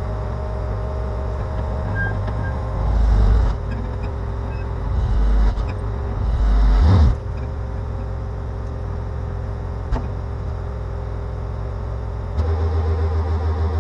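Unimog diesel engine running, with three louder surges as it is revved while the truck is moved. Near the end it gives way to music with a pulsing beat.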